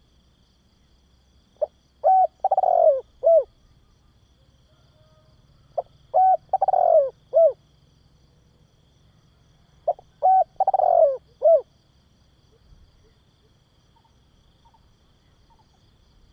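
Spotted dove cooing: three phrases about four seconds apart, each a short coo, a quick pair, a longer falling note and a final short coo.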